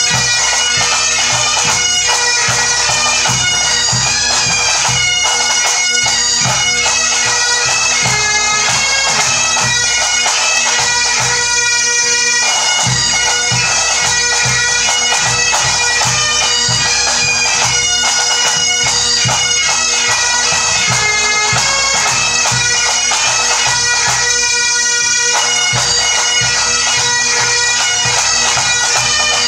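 A pipe band playing a tune: several Great Highland bagpipes carry the melody over their steady drones, while snare drums, tenor drums and a bass drum beat time beneath.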